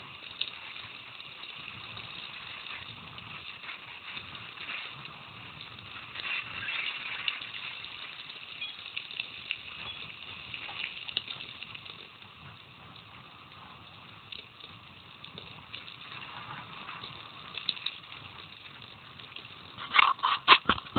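Mountain bike rolling down a gravel road, heard from a camera mounted on the rider or bike: a steady hiss of tyres and air with scattered clicks and rattles, and a burst of loud knocks and rattles near the end as the ride gets bumpier.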